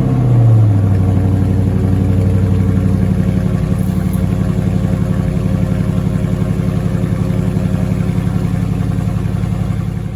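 Dodge Charger Scat Pack's 6.4-litre HEMI V8 just after starting, its revs dropping from the start-up flare in the first second into a steady idle. It fades out right at the end.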